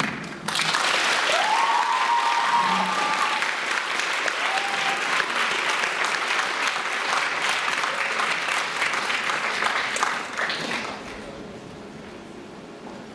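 Theatre audience applauding at the end of a musical number, with a voice cheering out about a second and a half in. The clapping dies away about eleven seconds in.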